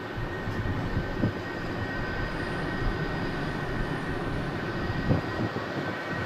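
ČD class 362 dual-system electric locomotive hauling a passenger train slowly into the station: a steady rolling rumble with a thin, steady high whine, and a few dull knocks as the wheels pass over rail joints and points.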